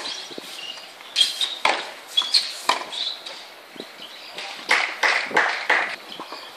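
Tennis being played on an outdoor hard court: a few sharp racket-on-ball hits, mixed with many short, high squeaks.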